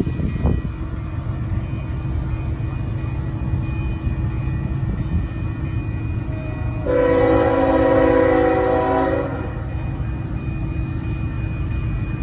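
Approaching freight locomotive's air horn sounding one long blast of several notes together, about seven seconds in and lasting a little over two seconds, over a steady low rumble.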